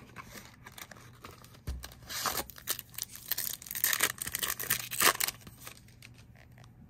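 Foil wrapper of a 2022 Topps Finest baseball card pack being torn open and crinkled: a soft thump about two seconds in, then a run of rustling rips that dies down after about five seconds.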